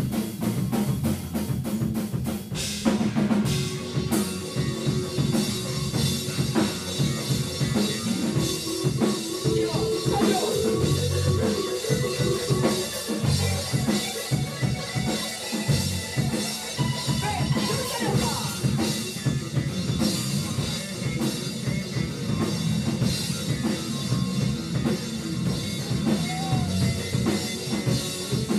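Live rock band playing, the drum kit prominent (kick, snare and cymbals) over electric guitar, bass and keyboard.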